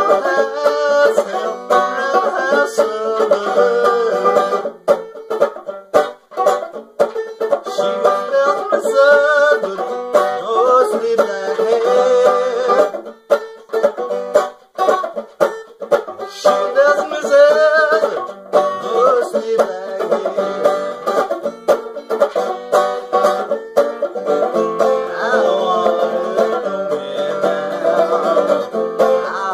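Banjo played at a slow tempo, with a man's voice singing over it in phrases.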